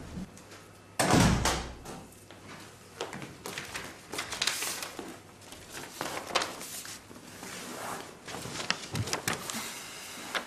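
An apartment's front door shuts with a loud thud about a second in. Footsteps and the rustle of a paper letter being handled follow.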